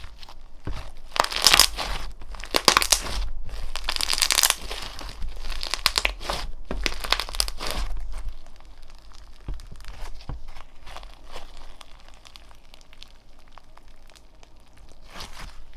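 Slime being squeezed, stretched and pressed by hand, giving crinkly, crackling pops. The crackling is densest and loudest in the first half and grows softer and sparser later.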